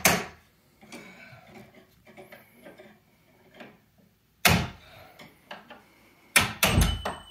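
Hand tools knocking on a door's metal hinge: a sharp knock at the start, another about four and a half seconds in and a quick run of knocks near the end, with faint small clatter between, as the hinge pins are worked out to take the door down.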